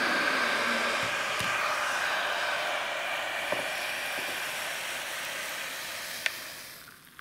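Hot water poured in a steady stream from a Proctor Silex electric hot pot into a ceramic mug, the pour tapering off and stopping near the end, with a small tap about six seconds in.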